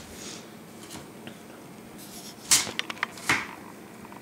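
A red apple pushed across a mandoline slicer's blade: two short slicing strokes about a second apart in the second half, with a few light clicks between them.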